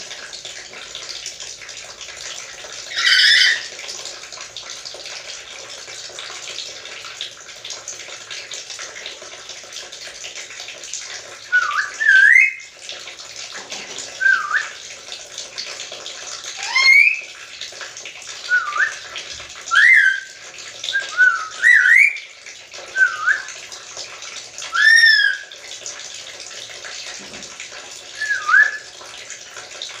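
Black-capped lory giving one harsh squawk about three seconds in, then from about twelve seconds a series of around a dozen short, rising whistles, over a steady background hiss.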